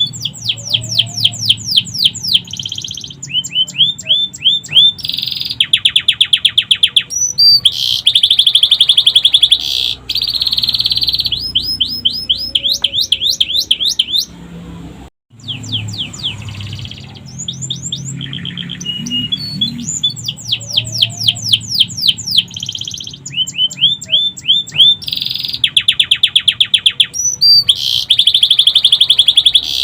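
Domestic canary singing a long, loud song of rapid trills and repeated chirp series, with phrases copied from the sikatan londo flycatcher. The song cuts out briefly about halfway and the same sequence starts over.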